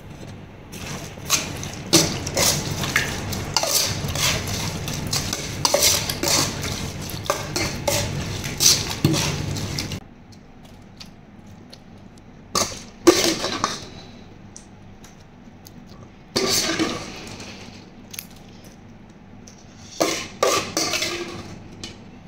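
A metal spoon stirring and scraping a wet mix of raw beef and blood inside an aluminium pot, with rapid clinks of spoon on pot. About ten seconds in it drops away, leaving a few separate clusters of metal clinks and scrapes.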